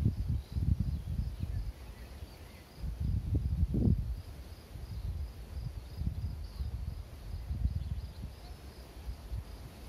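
Wind gusting across the microphone in uneven rumbling buffets, strongest about three to four seconds in, with a faint, rapid, evenly repeated high chirping in the background.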